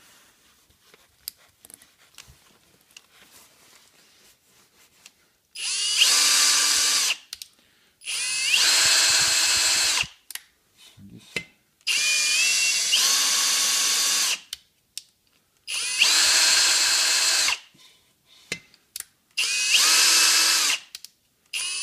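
Cordless drill spinning a tractor cylinder-head valve against its seat, lapping it in with fine grinding compound. After a few quiet seconds it runs in five short bursts of one to three seconds each, the motor whine rising in pitch as each burst starts.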